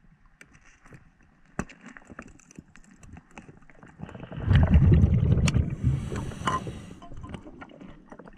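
Muffled underwater sound heard through an action camera's waterproof housing: faint scattered clicks and taps, then about four seconds in a loud low rumble of moving water swells up and fades out over about three seconds.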